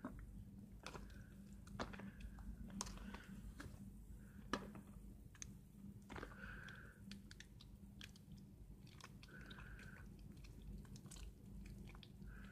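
Hands kneading wet, sticky slime in a plastic bowl: faint scattered squelches and sticky clicks. The slime is still slow to come together.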